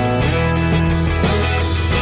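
Rock music with electric guitar and a steady bass line, an instrumental passage with no singing.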